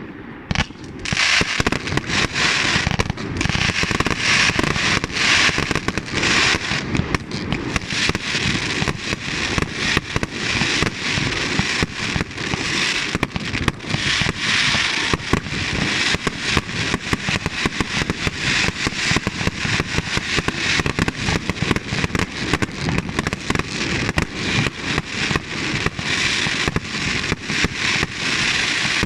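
Fireworks going off in a dense, continuous barrage of bangs and crackling, starting about a second in with no gaps between shots.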